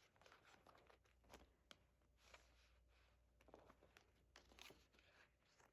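Faint rustling and small irregular clicks of photocards and album packaging being handled.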